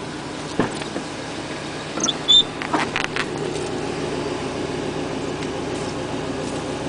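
2000 Chevy Tahoe's 5.3-litre V8 idling steadily after a first start, the engine the owner says has piston slap. A few short high squeaks and clicks come about two to three seconds in.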